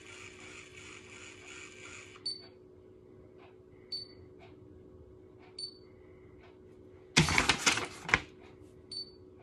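BaByliss automatic hair curler's motor whirring as it runs with hair drawn in, stopping about two seconds in, followed by short high beeps every second or two from the curler. About seven seconds in, a paper instruction leaflet is handled, with loud rustling for about a second.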